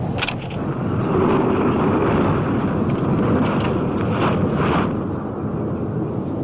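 A motor vehicle's engine running steadily under a rushing noise, growing louder about a second in and easing off near the end.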